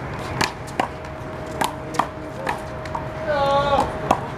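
A one-wall handball rally: sharp slaps of the big blue handball being struck by hand and smacking the wall and court, about five in irregular rhythm. A short gliding squeal sounds about three seconds in.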